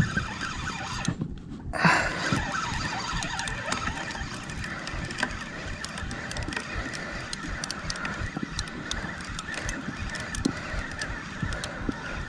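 PENN Battle II 5000 spinning reel cranked steadily against a hooked fish, giving a steady whirring whine with many small clicks. The sound cuts out briefly about a second in.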